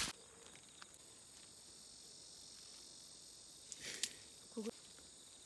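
Insects chirring steadily in a high, thin band, with a sharp click at the very start and a short rustle about four seconds in.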